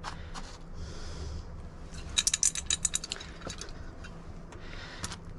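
Old corroded coins clinking and rattling in a small clay pot, a quick run of sharp metal clicks about two seconds in lasting around a second, with a few lighter clinks near the start.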